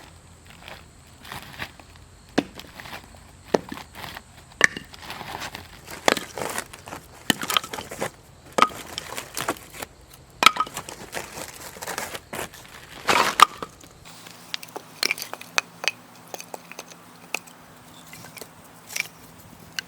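Dry firewood snapping and crunching in irregular sharp cracks, some much louder than others. The background tone changes about two-thirds of the way through.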